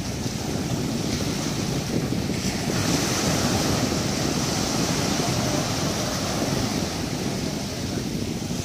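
Small surf breaking and washing in the shallows around people wading, a steady rushing wash with no pauses. Wind buffets the microphone underneath.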